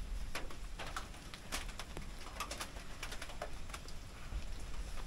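A bird calling, among scattered irregular clicks and light knocks.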